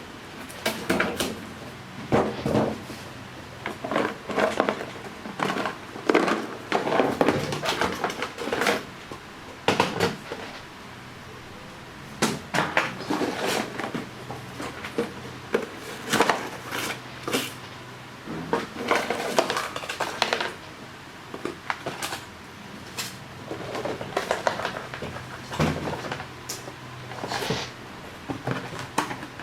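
Hard objects being handled and set down on a surface: irregular clattering, knocking and rustling that goes on and off throughout.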